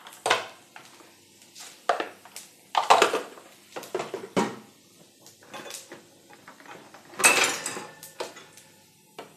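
Irregular clinks and knocks of kitchen utensils and containers, with a louder ringing clink about seven seconds in.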